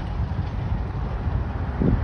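Steady low rumble of Union Pacific diesel locomotives moving, with wind buffeting the microphone; no horn sounds.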